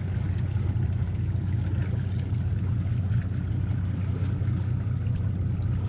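Boat motor running steadily at low speed, a continuous low hum.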